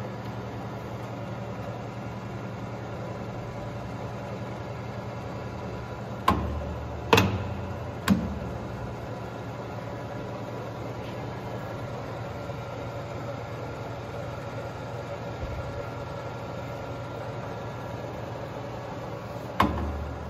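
Clausing 13-inch Student 2500 metal lathe running steadily at 180 RPM spindle speed in the mid range, a steady motor and gear hum. A few sharp clunks come about six to eight seconds in and another near the end.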